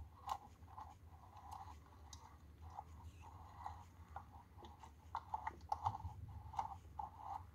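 Small boiler of a toy live-steam car heating over its meths burner, giving faint, irregular little pops and ticks as the water begins to simmer and pressure builds.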